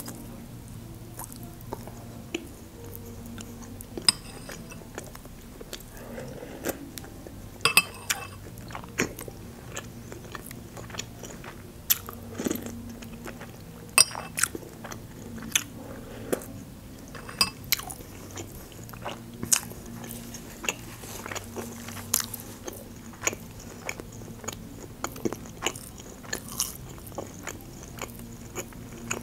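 Close-miked chewing and biting of a homemade meat chop and borscht, with sharp wet mouth clicks coming irregularly, about one every second or so.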